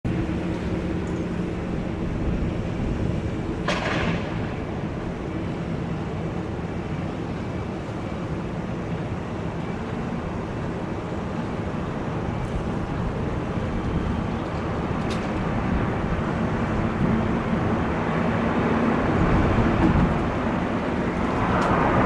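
Road traffic noise at a tunnel exit: a steady rumble and engine hum of vehicles coming out of the tunnel, with a brief swish about four seconds in and the noise swelling near the end as a vehicle approaches.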